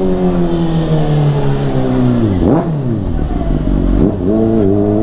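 Honda CBR600RR's inline-four engine running through a Yoshimura exhaust. Its pitch falls steadily for the first couple of seconds, rises and falls sharply for a moment about halfway through, then holds a lower, steady note.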